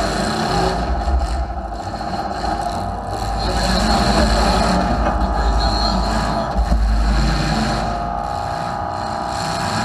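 Demolition derby car engines running and revving, a heavy uneven rumble that rises and falls with a steadier higher note in the last couple of seconds.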